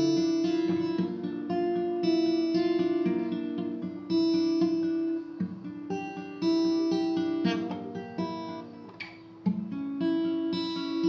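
Guitar played fingerstyle: a picked arpeggio pattern of single notes over held chords, with a brief pause about nine seconds in before the picking resumes.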